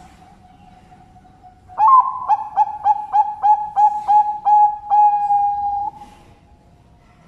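Zebra dove (perkutut bangkok) singing: a quick run of about ten short cooing notes, ending in one longer held coo.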